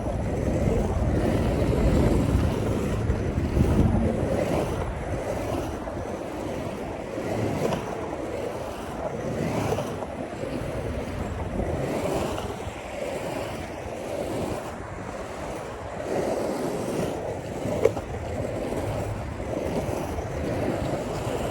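Wind buffeting the microphone over the steady rolling rumble of skateboard wheels on pavement, with one sharp click about three-quarters of the way through.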